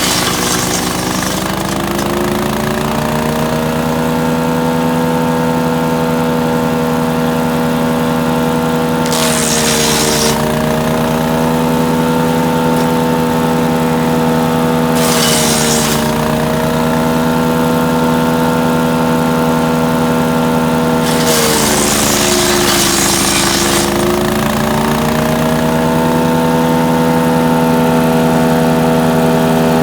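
Split-Fire 4090 wood chipper running, its engine pitch sagging under load several times, near the start, about nine and fifteen seconds in and for a few seconds past twenty-one, each time with a burst of grinding noise as wild cherry limbs are fed through and chipped.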